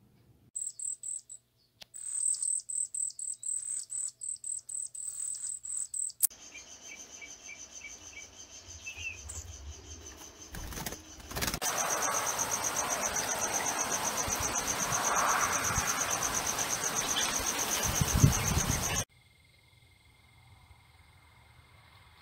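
Cedar waxwings giving very high, thin calls. For the first six seconds these come as short broken notes. Later a fast-pulsing high trill runs for about seven seconds over a loud hiss and stops abruptly.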